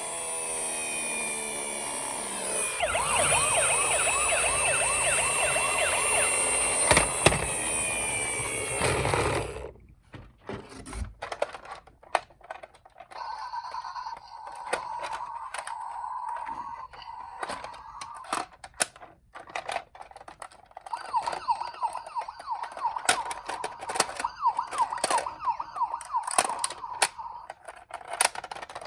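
Toy ambulance's electronic siren wailing loudly with a wavering pitch, cutting off suddenly about ten seconds in. After that come quieter scattered clicks and knocks, with a fainter warbling siren tone.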